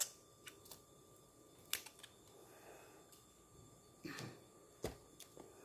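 Fibrous plant shoots being peeled and handled by hand: quiet, scattered sharp clicks and snaps, with a short scrape about four seconds in.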